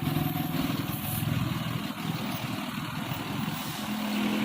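Bus engine running in slow traffic, a steady low drone. A second steady hum comes in near the end.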